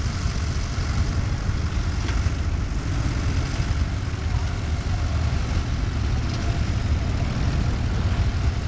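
Vintage tractor engine running steadily, with a heavy low rumble.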